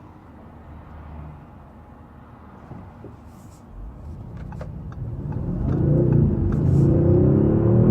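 Audi S6 engine pulling hard under acceleration. It is low and quiet at first, then grows loud from about four seconds in, its pitch rising steadily as the revs climb. A few light clicks are heard partway through.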